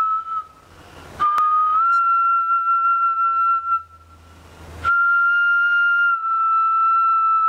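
A cast-glass kōauau, a Māori flute, played in long held notes. There are three notes, each lasting a few seconds, with short breaks between them, and each note steps slightly in pitch as it is held.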